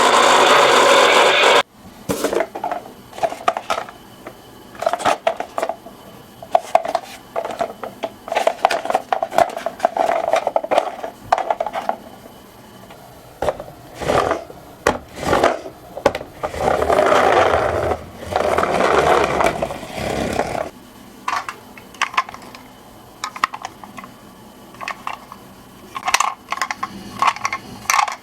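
Miniature toy cars rolling down a slope, their wheels and bodies clattering, clicking and scraping in irregular bursts. A loud continuous noise cuts off abruptly at the start.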